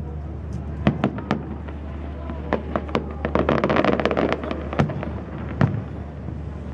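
Fireworks display: scattered sharp bangs of bursting shells, a dense run of crackling midway, then two more single bangs near the end, over a steady low hum.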